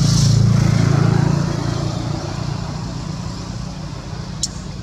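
Low engine rumble of a passing motor vehicle, loudest in the first second and a half and then fading, with one sharp click near the end.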